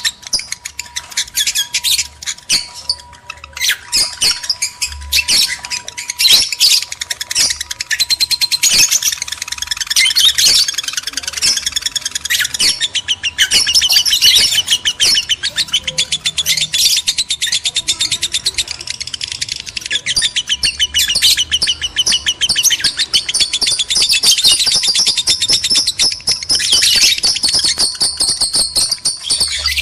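Lovebirds chattering in breeding condition: a dense, continuous run of rapid, shrill chirps.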